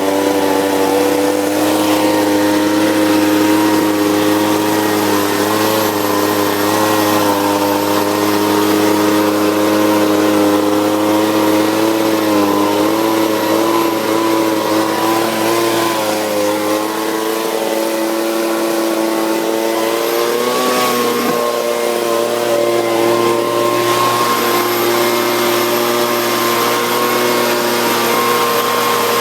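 Leaf blower engine running steadily and loudly, its pitch wavering slightly and rising a little about twenty seconds in.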